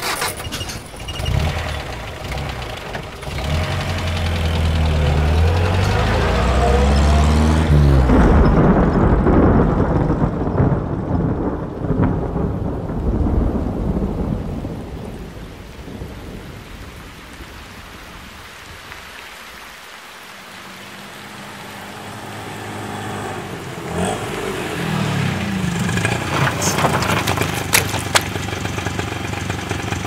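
Heavy vehicle pulling away, its motor tone climbing in steps and swelling into a loud rushing noise that slowly fades. Later another vehicle approaches, with a few sharp clicks near the end.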